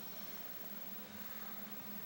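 Quiet ice-rink room tone: a faint steady hiss with a low electrical-sounding hum.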